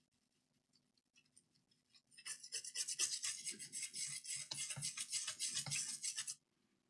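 Toothbrush scrubbing a water-wetted laptop motherboard in rapid back-and-forth strokes, washing off sticky sugary-liquid residue. The scrubbing starts about two seconds in and stops abruptly shortly before the end.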